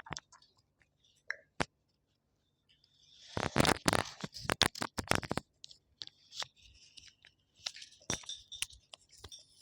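Close-up eating sounds: a few soft mouth clicks, a short pause, then about two seconds of dense crunching and scraping, followed by lighter crackly chewing noises.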